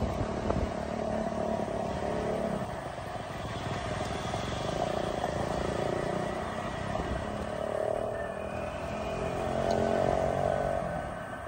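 Motorcycle engine running steadily while riding along a road, getting louder near the end.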